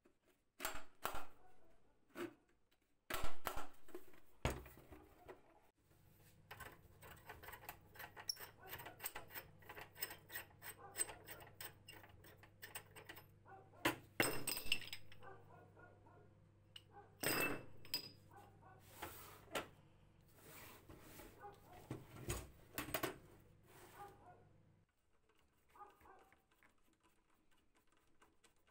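Vintage carpet sweeper being taken apart by hand: its plastic and metal parts knock, click and rattle against each other and the workbench in irregular bursts. A faint low hum runs through the middle, and the handling grows quieter near the end.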